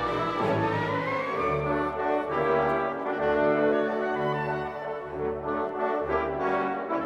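Orchestral background music with sustained brass chords.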